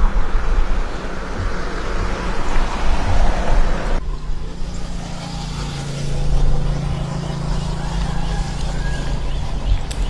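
Road traffic noise: a loud rush of passing vehicles, then after a sudden cut about four seconds in, a quieter steady low engine hum. Faint high chirps repeat near the end.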